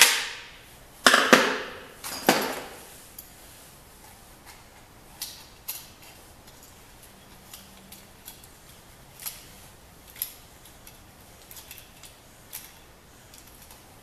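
Metal parts of a door latch assembly clicking and clacking as they are handled and worked. A few sharp clacks come in the first two and a half seconds, then scattered light ticks.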